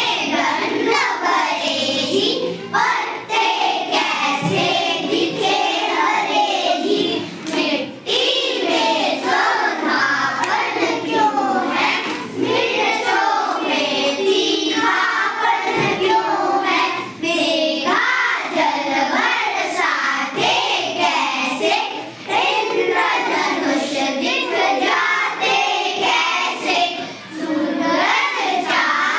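Young schoolchildren reciting a Hindi poem together in a sing-song chant, their voices overlapping in chorus.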